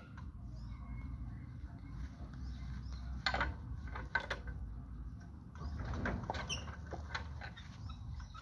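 Sharp clanks and knocks of hands working on a Kubota two-wheel walking tractor with its engine off. There are single knocks about three and four seconds in and a cluster around six to seven seconds, over a low steady background rumble.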